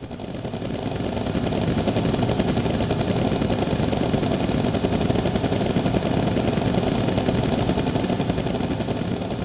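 Synthesized sound effect from a TJ Media PRO-3000 karaoke machine's Roland SC-88 sound module: a low, rapid rattling rumble like an engine or gunfire. It swells in over the first second or two, holds steady, and eases off slightly near the end.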